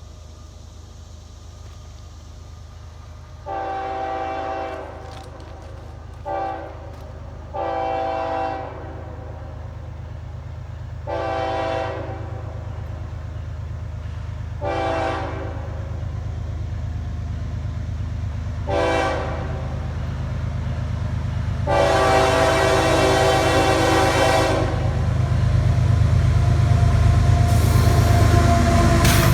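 Approaching CSX freight train's diesel locomotive sounding its multi-note air horn in about seven blasts, some short and some long, the last one the longest and loudest. Underneath, the low rumble of the locomotive grows steadily louder as the train draws near.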